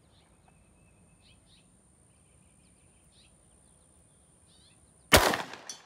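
A single 9mm pistol shot from a Sig P365 about five seconds in, sharp and loud, ringing out briefly. Before it, faint bird chirps over a quiet outdoor background.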